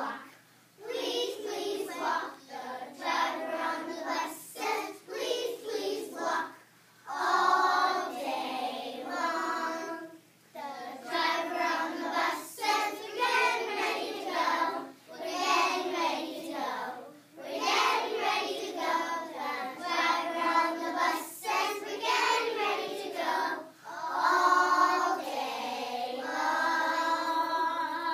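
A group of young children singing together in unison, in phrases with short pauses between them.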